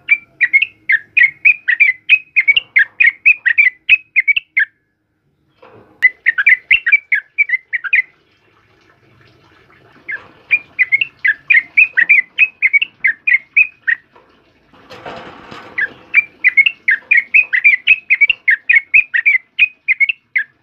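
Yellow-vented bulbul singing in fast, dense runs of chirpy notes, about five a second, in four bursts with short pauses between them. A brief rustle of movement is heard about fifteen seconds in.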